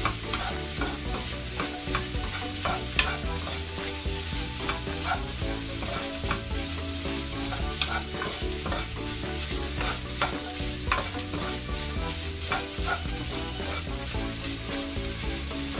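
Wooden spatula stirring and scraping shredded chicken and diced carrots around a nonstick frying pan, with frequent small clacks against the pan, while the food sizzles in butter.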